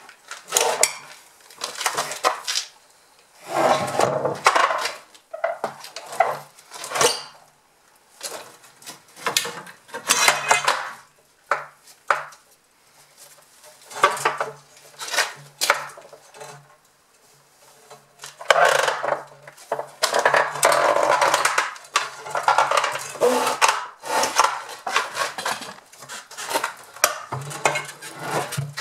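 Irregular knocks, clinks and scrapes as a heavy water tank base is dragged and levered in over a window sill on a steel cable and straps. There is a longer run of scraping about two-thirds of the way through.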